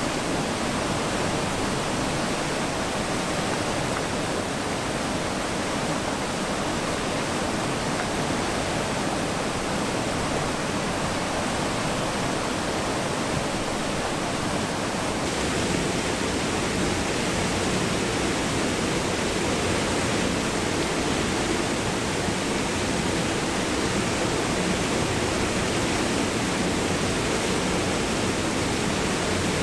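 A small waterfall on a rocky creek rushes steadily. About halfway through, the rush becomes a little fuller and louder.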